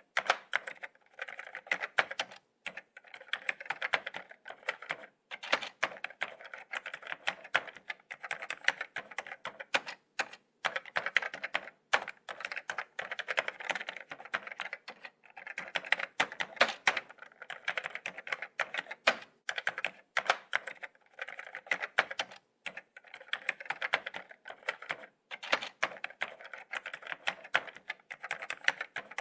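Laptop keyboard being typed on: quick, irregular key taps in runs, with short pauses between them.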